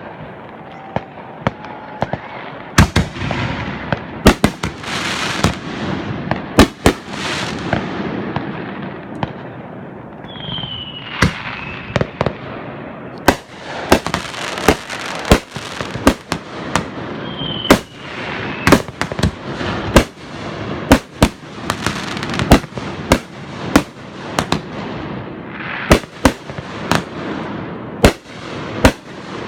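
Aerial fireworks display: many sharp bangs of shells bursting in quick, irregular succession over a steady crackle. Twice a short whistle falls in pitch.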